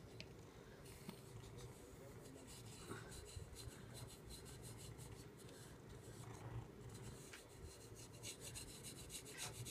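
A back scratcher scraping through a cat's fur in quick, faint, repeated strokes that come faster near the end.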